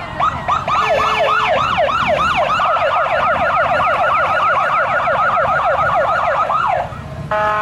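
Police motorcycle siren in a fast yelp, quick repeated whoops that speed up slightly and cut off near the end, followed by a short steady horn-like tone.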